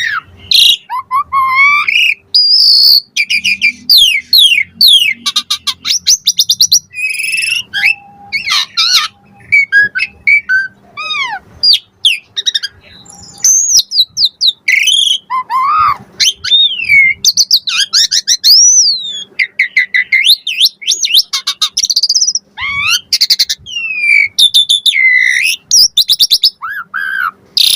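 Asian pied starling (jalak suren) singing a long, varied song: whistled notes gliding up and down, mixed with fast rattling clicks and chatter, with barely a pause between phrases.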